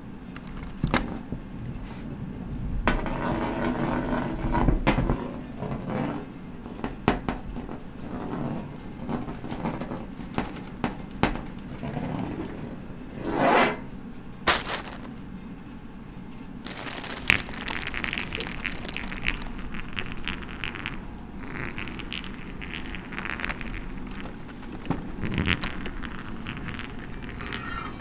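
Scattered small clicks, knocks and scrapes of hard objects, with a swelling rush and a sharp hit in the middle, then a denser crackling rattle from about halfway through.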